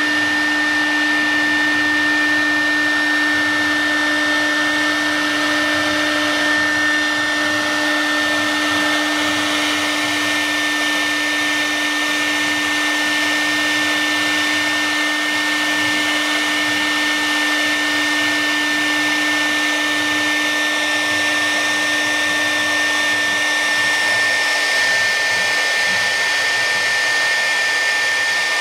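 A CNC wood router's high-speed spindle runs steadily with a constant high whine over dense cutting noise as its bit carves a relief into a wooden board.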